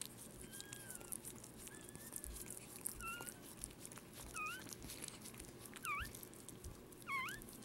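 Newborn Maltese puppy giving about six faint, thin, high-pitched squeaks, the later ones louder and swooping down then up in pitch, over faint clicking and rustling.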